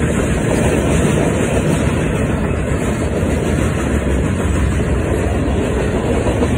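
Double-stack intermodal freight train passing over a road crossing: a steady noise of wagons rolling on the rails, strongest at the low end.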